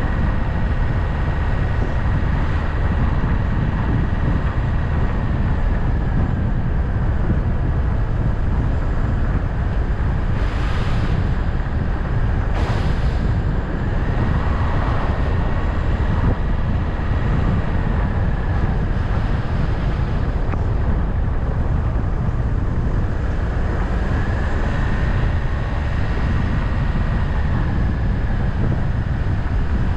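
A vehicle driving along a road: a steady low rumble of engine and tyres with wind noise, over which a faint whine rises and falls slightly. Two short hissing bursts come about a third of the way through, two seconds apart.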